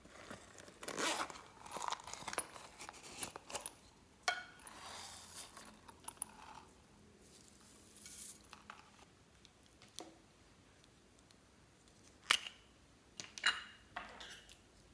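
Hands working slime and the things being mixed into it: irregular crinkling, scraping and crackling, with a few sharp clicks, the loudest about twelve seconds in.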